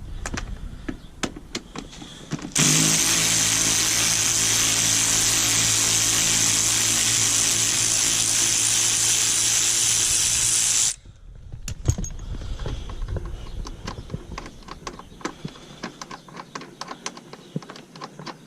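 A vacuum cleaner is switched on about two and a half seconds in, cleaning under a car seat. It runs steadily for about eight seconds, with a motor hum under a strong high hiss, then cuts off sharply. Light clicks and rattles come before and after it.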